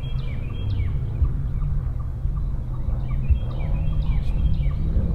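Wild turkey gobbler gobbling, heard twice over a steady low rumble.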